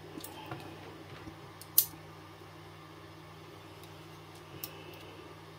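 Small clicks of Ruger P94 hammer and frame parts being handled and pulled apart by hand, with one sharp click a little under two seconds in and a fainter one about four and a half seconds in.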